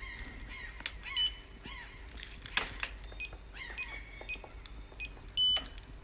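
Keys jangling on a ring at a locked door, with short electronic beeps from the door's keypad, one about a second in and a louder one near the end, and small birds chirping in short arching calls.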